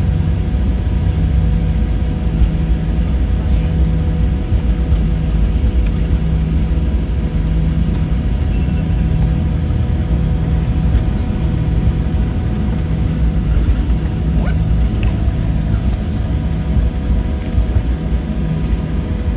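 Cabin noise inside a Boeing 737-700 taxiing after landing: a steady low rumble from the wheels and airframe, with the CFM56 jet engines running under it as a faint steady whine.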